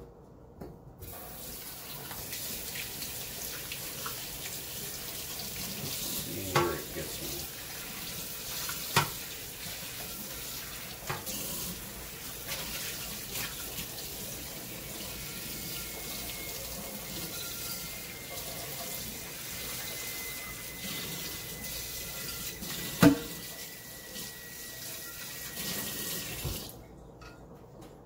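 Kitchen tap running into a stainless steel sink while baking soda paste is rinsed off a non-stick pan, with a few sharp knocks as the pan is handled. The water comes on about a second in and is shut off near the end.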